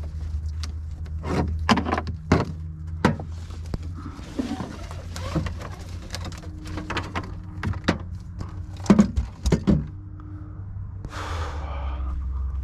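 Knocks, thuds and rustling of kayak gear and a hard-plastic kayak being handled in a pickup truck bed, with a scraping rustle near the end, over a steady low rumble.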